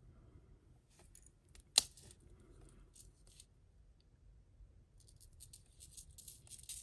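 Faint small clicks and chinks of a fine metal chain necklace with glass drops being handled and untangled, with one sharper click a little under two seconds in and a quick run of tiny clicks near the end.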